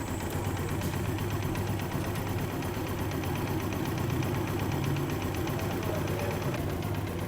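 Honda CG 125's single-cylinder four-stroke engine idling steadily with no tick. Its vibrating pin has been refitted with an oversize rubber ring and silicone, and the noise problem is cured.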